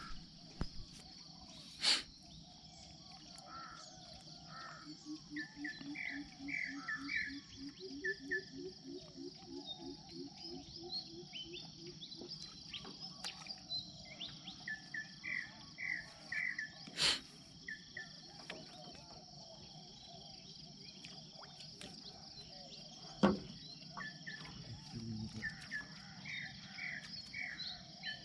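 Riverside dawn chorus: birds calling in repeated groups of short chirps over a steady high insect drone. A low pulsing call runs for several seconds, and three sharp knocks come at wide intervals.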